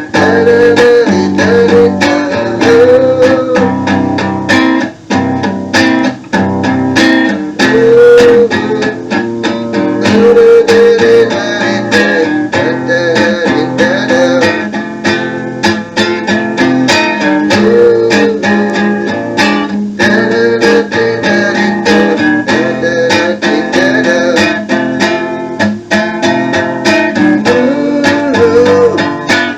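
Guitar-led music with strummed and plucked guitar, played back from a cassette tape.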